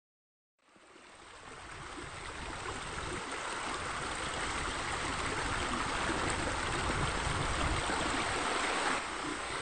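Water splashing steadily from a pool waterfall. It fades in from silence about half a second in and grows louder over the next two seconds.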